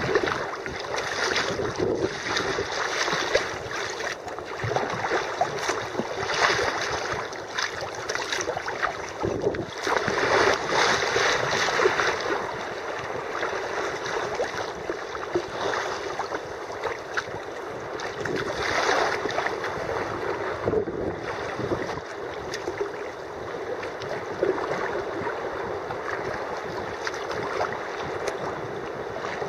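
Sea kayak being paddled: water splashing and rushing along the hull, with paddle strokes coming in surges every second or two, steadier in the second half.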